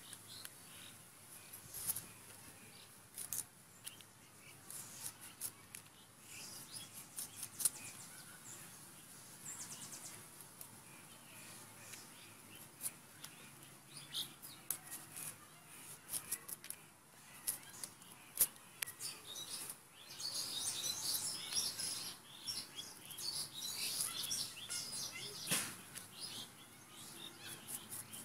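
A white radish being peeled against a bonti, the fixed upright blade, making repeated short scraping cuts as strips of skin are shaved off. Birds chirp in the background, busiest from about twenty seconds in.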